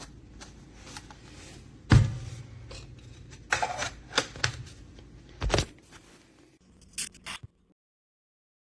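Handling noises: a sharp knock about two seconds in, a few scrapes and rustles, another knock, and small clicks, after which the sound cuts off to silence.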